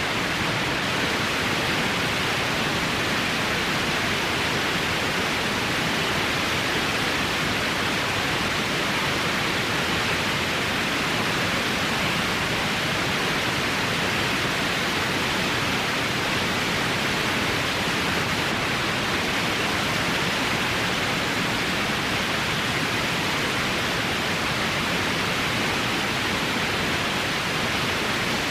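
White noise sound effect: a steady, unchanging hiss that spreads evenly across low and high pitches, with no tones or events in it.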